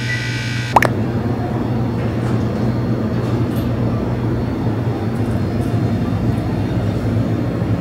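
Refrigerated display cases humming steadily, a low machine hum with a hiss over it. Under a second in, a bright ringing tone cuts off with a click.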